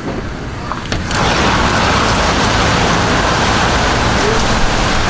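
Heavy rain and wind from a passing tornado-warned thunderstorm, a steady rush of noise that swells up about a second in.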